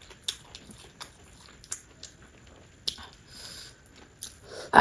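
Close-miked chewing of food, with soft, wet mouth clicks about once a second. A louder burst comes right at the end.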